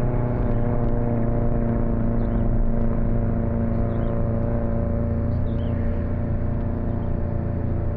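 Vehicle engine running at a steady, even pitch while travelling along a road, with a low rumble underneath.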